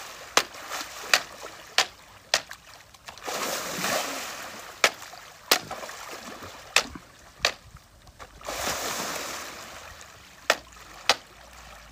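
A bamboo pole jabbing at a crocodile in shallow muddy water: sharp knocks, mostly in pairs, with two longer spells of splashing and sloshing water between them.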